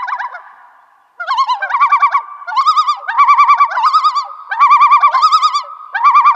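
Common loon calling: after a brief pause, a loud series of repeated quavering, warbling phrases, one after another.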